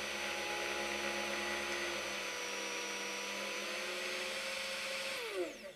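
Unimat SL1000 mini lathe running steadily with a whine while a 4 mm high-speed-steel end mill in the tailstock chuck is fed into the spinning brass part to bore a 4 mm hole. Near the end the whine drops in pitch and fades out as the lathe is switched off and winds down.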